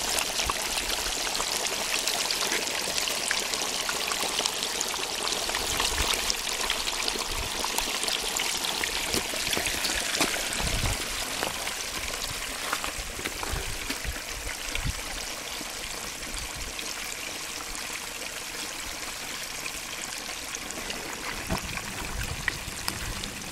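Hot oil sizzling steadily in a propane turkey-fryer pot with a whole turkey frying in it, easing off a little about halfway through, with a few soft knocks.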